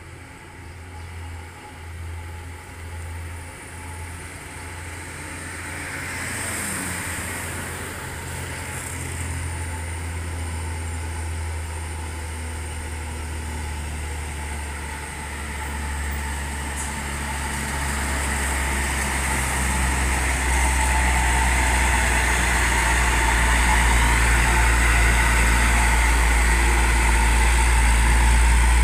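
Hino 500 wing-box truck's diesel engine running at steady revs, growing steadily louder as the truck approaches and is loudest as it passes close near the end.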